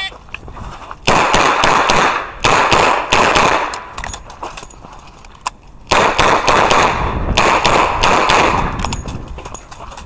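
Smith & Wesson 627 eight-shot revolver firing a stage in rapid shots: two quick strings of loud, echoing shots about a second and about six seconds in, with a pause of a couple of seconds between them.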